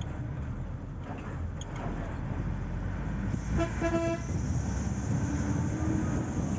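Steady low rumble of road travel in a moving vehicle, with a short vehicle-horn toot in two quick parts a little past halfway.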